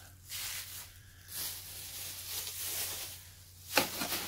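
Thin clear plastic bags crinkling and rustling as they are handled and stuffed into a wooden box, with a couple of sharper crackles near the end.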